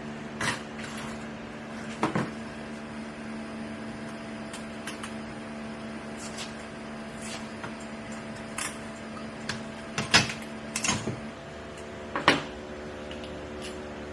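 Scattered sharp knocks and clicks of hand work on a car's sunroof trim, the loudest a cluster about ten to twelve seconds in, over a steady hum.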